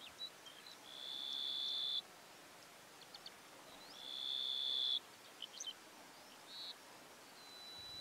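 Ashy-crowned sparrow-lark singing: two long, level, high whistled notes of about a second each, each growing louder and then cutting off sharply, with short chirps between them and a thin faint whistle near the end.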